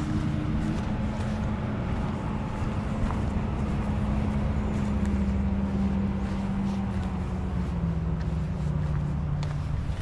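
A steady engine drone with a low hum that holds its pitch and then steps lower about eight seconds in.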